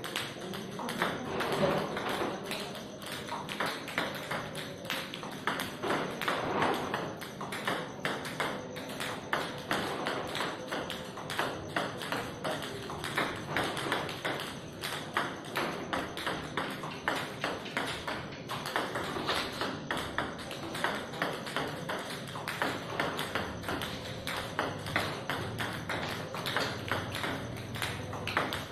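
Table tennis ball clicking over and over as serves are hit: the ball cracks off the rubber bat and ticks on the tabletop, several clicks a second.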